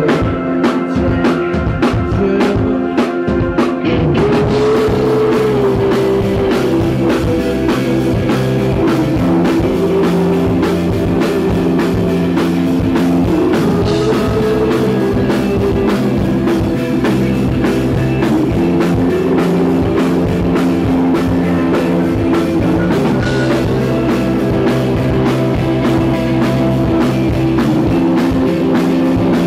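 Live indie rock band playing: drum kit, electric guitar and keyboard. For the first four seconds there are only separate hits, then the full band comes in and plays on steadily. The audience recording is overloaded and breaks up.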